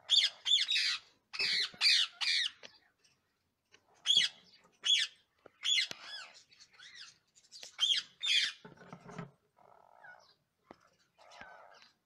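Rose-ringed (ringneck) parakeets in a nest box giving a run of loud, harsh squawks in quick clusters, with quieter raspy calls in between in the second half.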